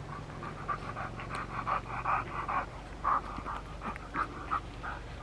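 A dog panting, in quick short breaths several times a second.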